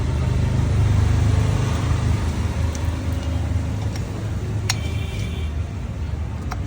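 Bajaj Pulsar motorcycle's single-cylinder engine idling with a steady low drone that rises a little about a second in, then eases off. A couple of sharp clicks come near the end.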